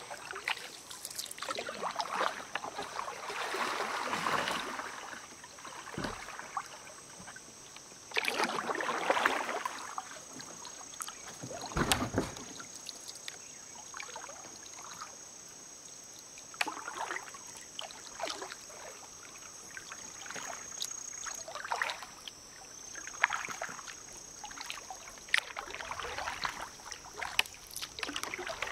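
Kayak paddling: water splashing and dripping off the paddle blades in swells every few seconds, with a couple of sharp knocks in between.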